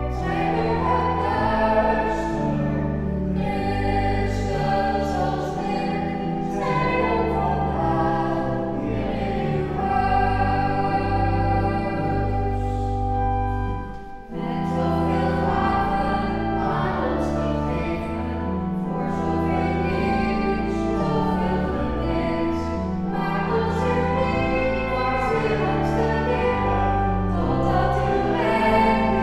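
A man and a woman singing a Dutch hymn to pipe organ accompaniment, the organ holding long low notes under the voices. The music stops briefly about halfway through between verses, then the next verse begins.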